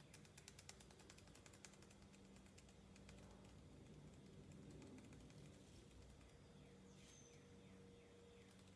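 Faint quick clicking for about the first two seconds as a small plastic glitter shaker is worked over a tumbler, then near silence with a low steady hum.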